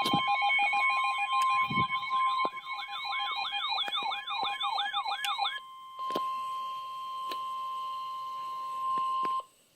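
NOAA Weather Radio warning alarm: a steady, loud single tone that cuts off suddenly about nine and a half seconds in, signalling that a warning message follows. For the first five and a half seconds a rapidly sweeping, siren-like electronic alarm sounds over it, about three rises and falls a second.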